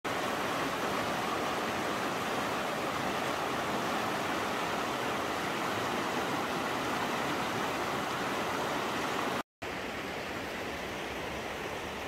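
Shallow mountain stream rushing over rocks: a steady, even rush of water. It cuts out for a moment about nine and a half seconds in and comes back as a quieter steady rush.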